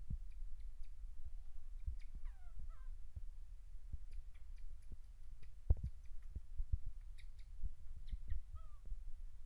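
A baby monkey gives faint, high, squeaky calls that fall in pitch: a short cluster about two seconds in and one more near the end. Soft knocks and clicks of a spoon and hands handling things on a metal tabletop run alongside, with one louder knock about halfway through.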